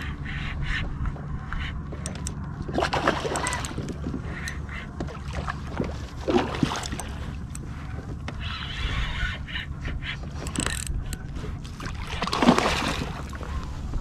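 A hooked fish thrashing and splashing at the water's surface beside a kayak during the fight, with a few louder splashes about 3, 6 and 12 seconds in, the last the loudest.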